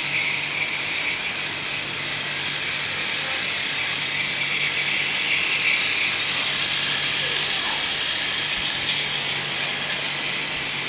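Battery-powered toy train's small motor and gears whirring steadily as it runs along plastic track.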